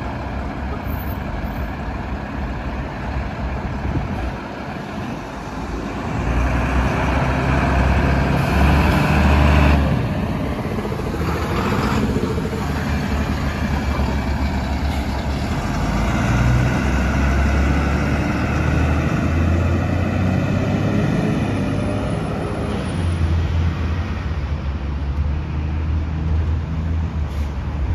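Fire engine's diesel engine running as it drives past close by and pulls away, heavy and steady, amid road traffic.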